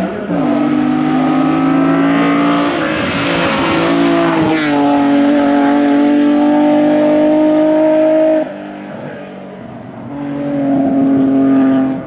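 Hill-climb race car, a BMW E30, at full throttle: the engine holds long, steady high-rev pulls. There is a rush of noise and a drop in pitch as it passes close by and climbs away. About eight seconds in the engine note falls away sharply, then rises again into another pull.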